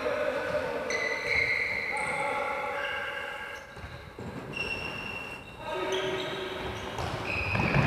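Echoing sounds of an indoor futsal game on a wooden sports-hall floor: many short, high squeaks of players' shoes, overlapping, with ball thuds and players' calls.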